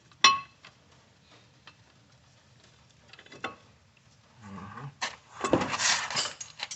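Metal brake parts and hand tools being handled at a car's wheel hub: one sharp ringing clank just after the start and a single click a little past the middle. Near the end comes a burst of metal rattling and scraping as parts are fitted.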